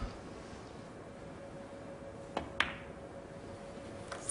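Snooker cue tip striking the cue ball, then a fraction of a second later a sharper click as the cue ball hits the green, with a slight kick (a bad contact between the balls). Another ball click follows near the end.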